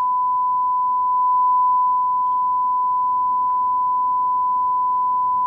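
Censor bleep: one steady, unbroken beep at a single pitch laid over a line of speech.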